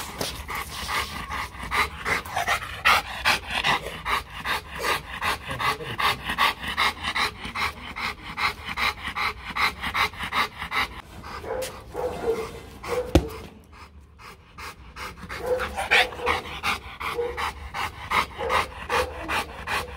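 Rottweiler panting hard, a quick even rhythm of about three breaths a second. There is one sharp click about two-thirds of the way through, then a short pause before the panting resumes.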